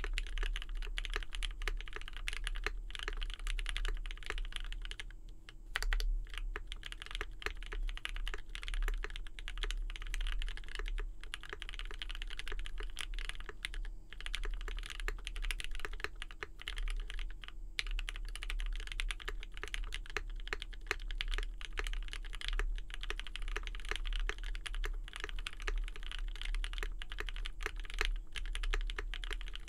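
Continuous fast typing on a Mode65 custom mechanical keyboard with lubed Marshmallow switches on a POM plate, hotswap PCB and GMK doubleshot keycaps: dense, even keystroke clacks. Brief pauses about five seconds in and again near fourteen and eighteen seconds, over a faint steady hum.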